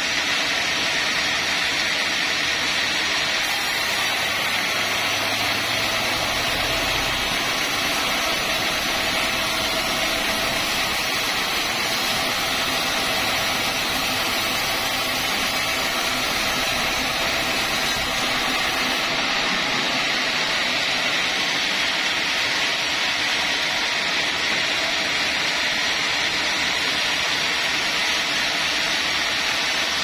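Vertical band sawmill running steadily as its blade cuts lengthwise through a teak log on the rail carriage.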